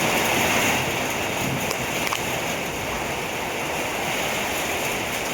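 Strong, gusty wind blowing ahead of a rainstorm: a loud, steady rushing noise.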